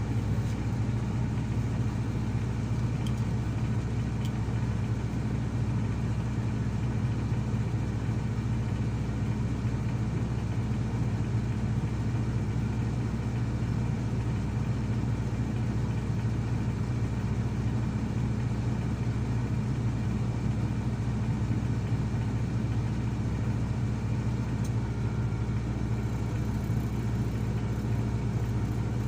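Heavy diesel engine of earthmoving machinery running at a steady speed, a constant low drone that does not change.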